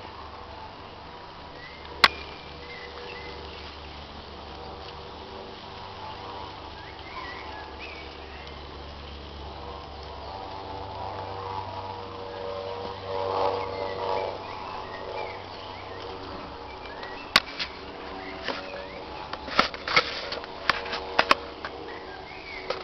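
Outdoor ambience with faint bird chirps and a buzzing hum that swells about halfway through. A single sharp click comes about two seconds in, and a cluster of sharp clicks comes near the end.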